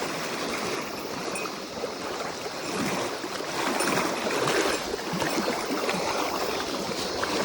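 Fast mountain stream rushing in a steady, churning wash that swells and eases a little, its current strong enough to push hard against a wader's legs.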